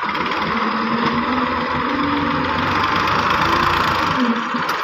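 Massey Ferguson 135 tractor's diesel engine running and working as its front loader drives into a sand pile, with a low tone that wavers up and down in pitch.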